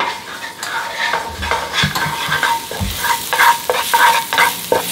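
Minced garlic sizzling in hot oil in a pan, stir-fried with a utensil that scrapes and taps the pan a few times a second.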